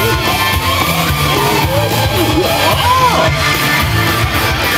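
Loud Halloween parade music with a steady beat, with voices singing and calling out over it.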